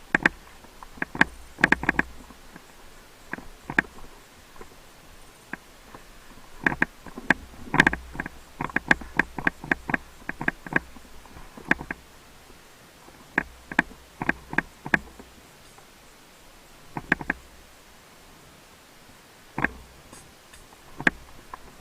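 Airsoft gunfire: sharp cracks in scattered single shots and quick bursts, with the densest run around the middle.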